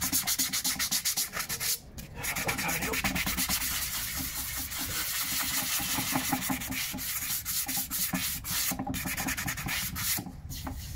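Sanding block rubbed quickly back and forth over a horse's hoof wall, smoothing and finishing the hoof. The strokes pause briefly about two seconds in and again near the end.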